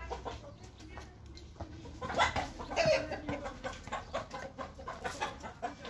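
Chickens clucking, a run of short irregular clucks that are loudest about two to three seconds in.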